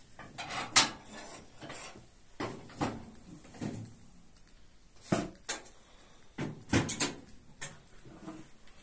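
A parrot cracking seeds in its beak: sharp, irregular cracks and crunches, about ten of them, some in quick pairs.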